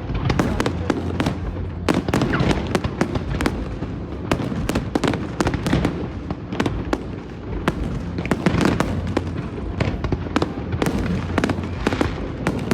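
Fireworks display: a dense, continuous run of sharp bangs and crackles, several a second, over a steady low rumble.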